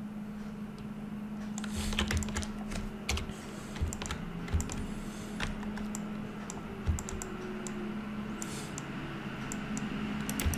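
Computer keyboard keys and mouse buttons clicking in irregular scattered presses and short runs, over a low steady hum.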